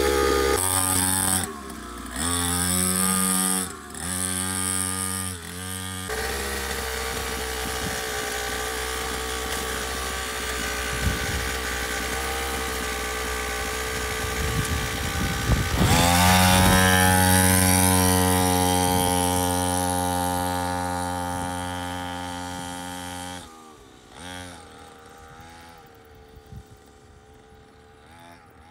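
A 49cc two-stroke mini dirt bike engine running and revving, with several abrupt cuts in the first few seconds. Later it holds a steady pitch and fades slowly as the bike pulls away, then drops off sharply near the end.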